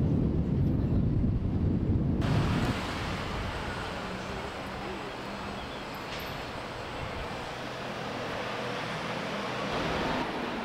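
Outdoor vehicle and traffic noise: a loud low rumble that cuts off abruptly about two seconds in, then a steady, quieter hiss of roadway noise.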